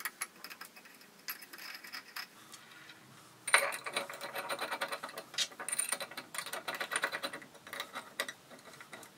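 Hex key turning socket-head cap screws into steel and cast-iron parts: small metallic clicks and scrapes as the key works in the screw heads. The clicking is sparse at first and grows busier about three and a half seconds in.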